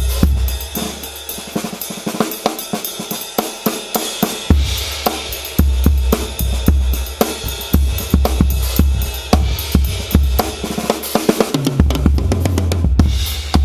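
Drum kit played in a busy groove, with a Ludwig Black Magic snare wearing an Earthtone calfskin head, bass drum, hi-hat and cymbals. The kick drops out for about two seconds, then returns.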